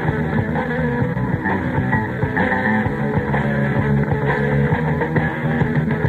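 A rock band playing an instrumental number live, with electric guitar over a steady beat. The sound is dull, with little treble.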